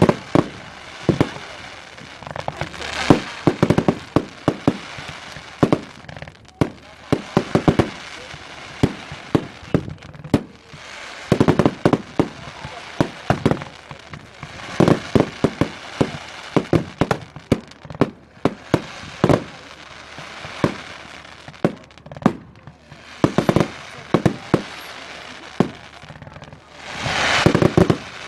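Fireworks display: volleys of sharp bangs and crackling come in clusters every few seconds over a steady hiss, with a louder rushing swell near the end.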